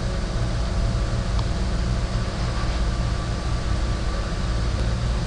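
Steady low hum and hiss of background noise, with one faint click, as of a computer mouse button, about a second and a half in.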